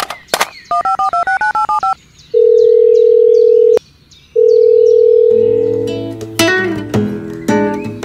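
Telephone sound effect: a quick run of about ten touch-tone dialling beeps, then two long ringing tones on the line with a short gap between them. Acoustic guitar music comes in near the end.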